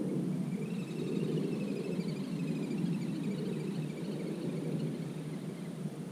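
A steady low rumble of open-air background noise. Faint, quick twittering of small birds runs over it from about a second in until near the end.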